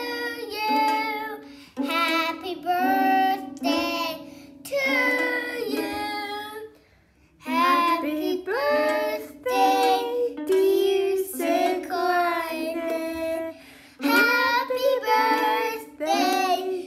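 A young child singing a slow song in phrases, with a short break about seven seconds in.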